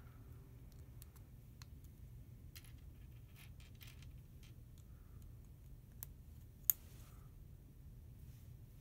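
Small plastic clicks and taps of construction-kit beams and connector pins being handled and pushed together, with one sharp snap about two-thirds of the way through.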